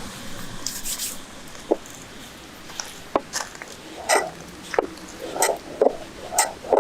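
Someone chewing food with wet, squishy mouth sounds, a chew about every half second from a few seconds in, after a few isolated sharp clicks.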